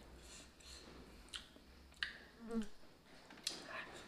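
Close-miked eating sounds of a mouthful of rice with bird's-eye chilies: wet lip smacks and mouth clicks between airy breaths, with a brief low hum about halfway through.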